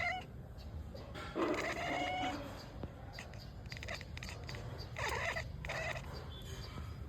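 A cat meowing: a drawn-out call a little over a second in, then shorter calls about five seconds in.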